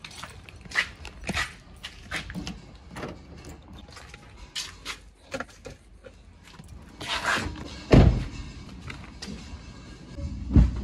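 A car door thunks shut about eight seconds in, amid clicks and rustling as the SUV door and seat are handled. There is another thump near the end, and then a steady low engine hum begins.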